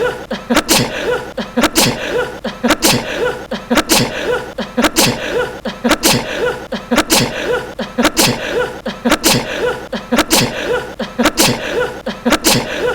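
A young man sneezing again and again in a loop, one short, sharp sneeze about every second.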